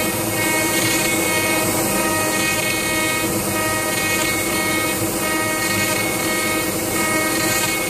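CNC router spindle running at a steady whine, several tones at once over a constant hiss, while its end mill cuts plectrum blanks out of dark timber.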